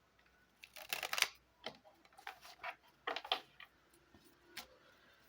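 Baralho cigano fortune-telling cards being shuffled and drawn: a series of short papery flicks and taps, loudest about a second in and again about three seconds in.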